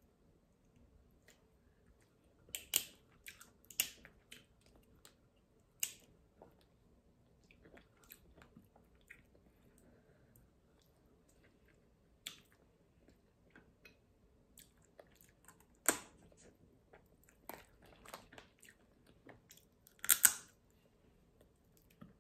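Steamed blue crab shells cracked and snapped apart by hand, with sharp, scattered cracks and quieter chewing between them. The loudest cracks come in a quick cluster near the end.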